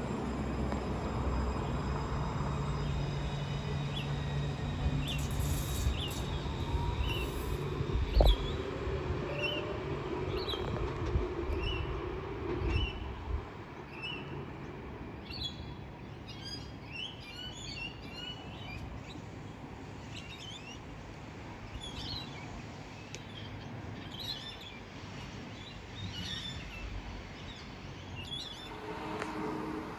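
Light-rail tram pulling away with a low rumble that fades out over the first dozen seconds, with one sharp thump about eight seconds in. Birds chirp over it, first one short note repeated about every second, then a busier mix of calls once the tram has gone.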